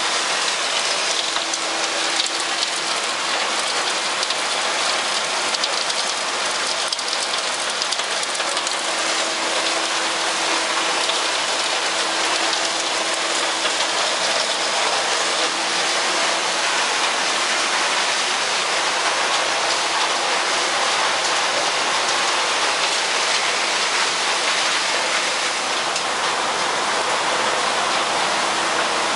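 Wood chips pouring steadily from an overhead chip bin into a chip truck's trailer: a continuous hiss.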